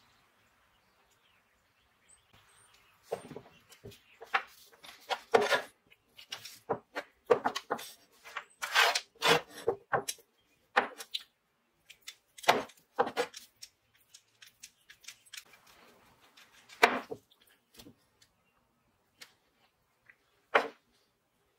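Small metal parts of an old hand drill's chuck (its shell and jaws) being handled and set down on a wooden bench: irregular clicks, clinks and knocks with some rubbing. They begin about three seconds in, come thick in the middle and thin out near the end.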